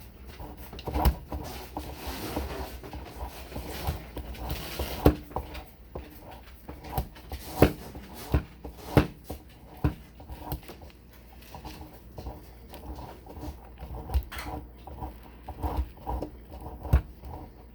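Irregular knocks and clicks, with a stretch of hissy rustling about two seconds in that lasts a few seconds.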